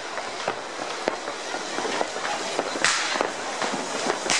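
Consumer fireworks and firecrackers going off near and far: a constant crackle of small pops, with sharp bangs about a second in and near the end and a louder burst about three seconds in.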